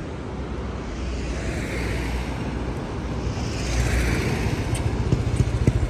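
Motor vehicle engine running with road and traffic noise. Its low hum rises in pitch about two-thirds of the way through.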